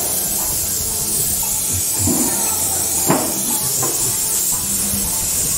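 Compressed-air paint spray gun with a suction-feed cup hissing steadily as it sprays paint onto a bus body panel. Two sharp clicks come about three and four seconds in.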